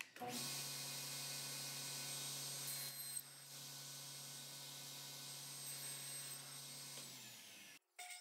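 Table saw running steadily with a low motor hum and a hiss. It is loudest for about the first three seconds, then settles lower, and a high whine starts to fall in pitch near the end before the sound cuts off.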